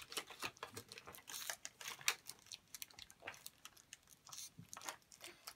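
Foil blind-bag toy wrappers being torn open and crinkled in the hands, an irregular run of crackles and rustles.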